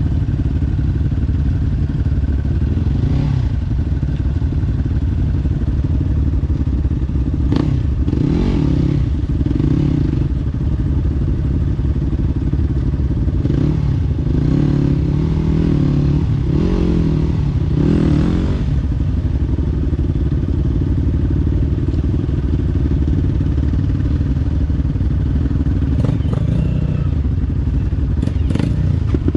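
Off-road dirt bike engine running steadily, its revs rising and falling several times in the middle, with a few knocks and clatters over rough ground.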